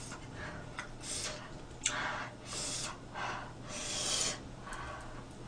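Short, airy breaths drawn in and blown out through the mouth, about one a second, the hissing breaths of someone eating very spicy food. A small sharp click comes just under two seconds in.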